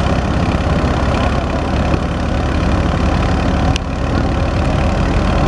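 Massey Ferguson 240 tractor's three-cylinder diesel engine running steadily under load, driving a wheat thresher whose machinery adds a dense, even mechanical noise.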